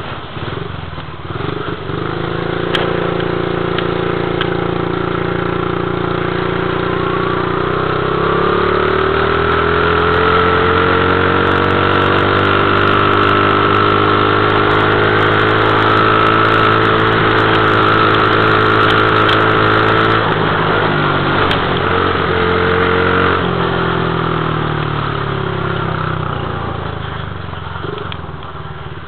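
Dirt bike engine running as it is ridden, at low revs at first, then climbing in pitch about a quarter of the way in, held at higher revs for about ten seconds, then easing back down.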